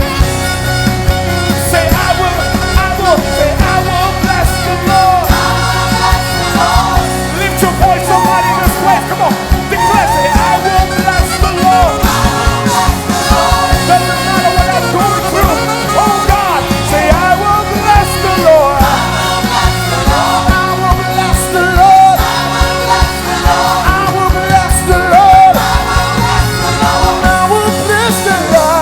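Live gospel worship band playing continuously, with a voice singing long, sliding, ornamented melodic lines over it.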